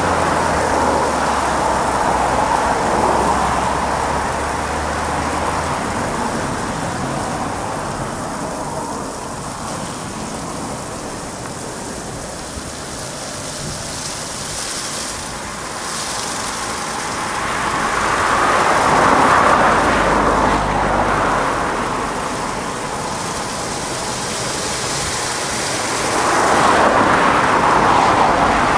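Aquarama Stargate S111 rollover car wash gantry running a wash cycle: a steady hiss of water spraying onto a car, over the low hum of the machine's motors. The spray swells louder about two-thirds of the way in and again near the end.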